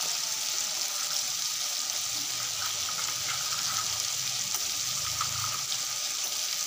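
Vegetables frying in oil in a kadai, with mustard paste just added: a steady sizzling hiss with a few faint pops.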